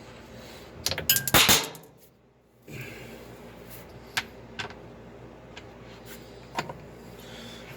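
Hard clatter of objects being handled: a quick burst of sharp clicks and knocks about a second in, then a few single clicks spaced out later.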